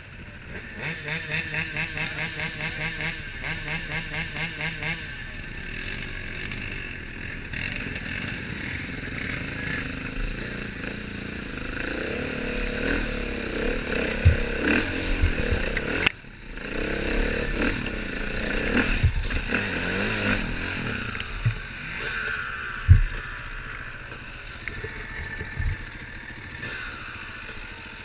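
ATV and dirt-bike engines revving and idling as the machines churn through mud, with a rhythmic engine pulse for the first few seconds and several sharp knocks and clatter in the middle.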